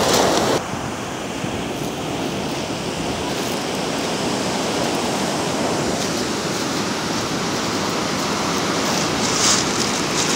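Ocean surf breaking and washing onto a cobble beach, a steady rushing. A louder brief rush stops about half a second in, and another comes near the end.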